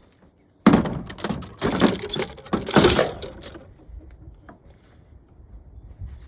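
Metal hand tools clattering and rattling together for about three seconds, then a few faint knocks as they are handled.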